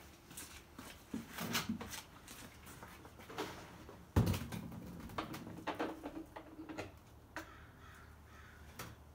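Knocks, clicks and light clatter of hands working on a dirt bike on its stand, with one heavy thump about four seconds in. A bird calls now and then; the engine is not running.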